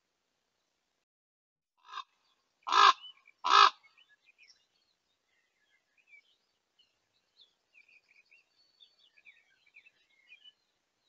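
Common ravens calling: a soft call, then two loud, harsh croaks in quick succession, given while they harass a roosting Eurasian eagle owl. Small birds chirp faintly afterwards.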